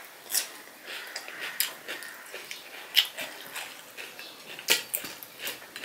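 Close-up crunching and wet chewing of raw cucumber slices, a run of irregular sharp crunches with the loudest about three seconds in and just before five seconds.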